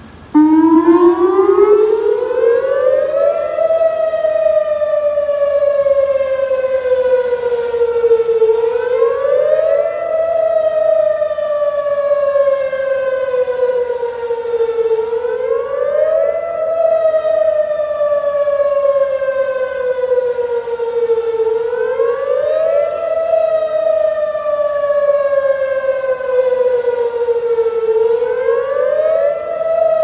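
Whelen WPS-2810 electronic outdoor warning siren sounding its wail test signal. It comes on suddenly just after the start and climbs in pitch. Then it sweeps slowly down and quickly back up, about once every six and a half seconds.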